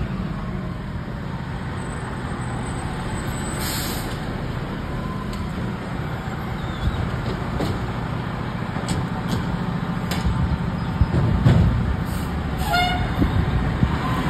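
Fire engine's diesel engine running at low speed, a steady low rumble that swells briefly near the end. A short hiss of air from the air brakes about four seconds in.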